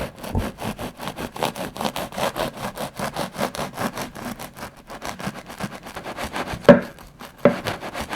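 An old, slightly rusted serrated bread knife sawing back and forth through a loaf in quick scraping strokes, about five a second. The bread cuts with some effort and sheds crumbs. A couple of louder knocks come near the end.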